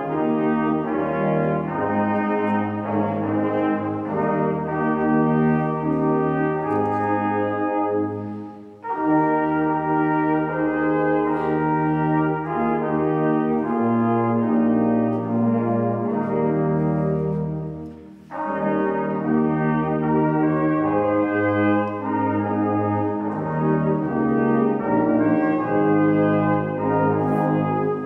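Brass ensemble of tubas and smaller valved horns playing a slow, chordal hymn-like piece in long held notes. The phrases break off briefly about nine seconds in and again about eighteen seconds in.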